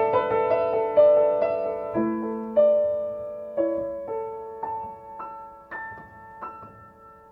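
Solo piano, tuned so that C is 528 Hz, playing slow, gentle single notes and chords that ring on and overlap. The notes come sparser and the playing grows quieter toward the end.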